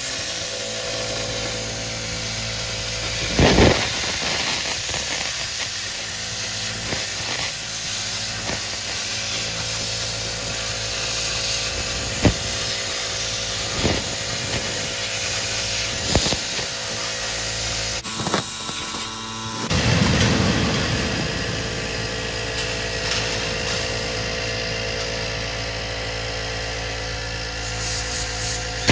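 Thermal Dynamics Cutmaster 51 air plasma cutter cutting 16-gauge steel plate: a steady hiss, with a few sharp knocks along the way and a brief break a little past halfway.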